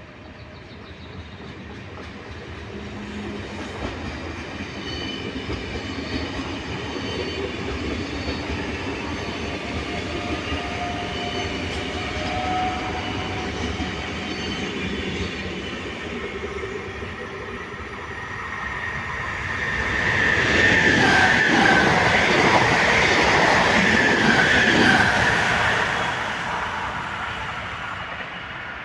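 Train approaching and going by at a station: the noise builds with a faint steady whine. Then a loud high-pitched squeal of wheels on rail comes about two-thirds of the way through, and the sound fades near the end.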